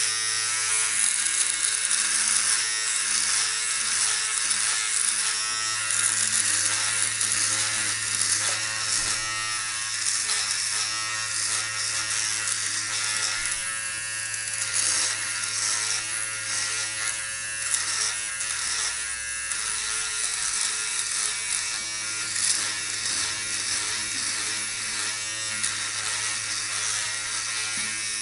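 Electric beard trimmer running with a steady buzz while it is pressed and moved over the upper lip and chin, shaving off a mustache. A scratchy high-pitched noise over the buzz rises and falls as the head moves over the skin.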